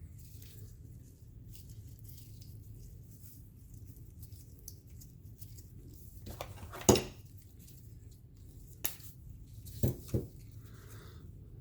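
Light clicks and taps of small metal pistol parts and tools being handled on a workbench. The loudest click comes about seven seconds in, and a few smaller ones follow near the end.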